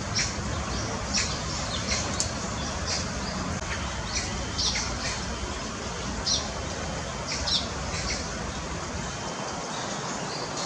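Eurasian tree sparrows chirping: a scatter of short, sharp chirps, a dozen or more over the stretch, over a steady background rush.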